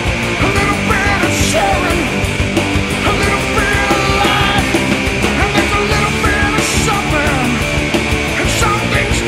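Loud rock band music: drums and bass keep a steady beat under a lead line that bends in pitch.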